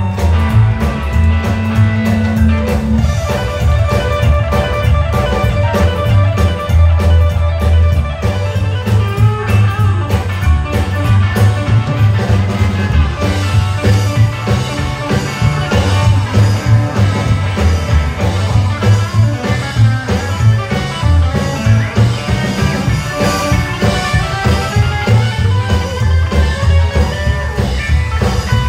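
Live rockabilly band playing an instrumental passage: upright double bass laying down a heavy bass line, a hollow-body electric guitar playing melodic lead lines, and a drum kit keeping a steady beat.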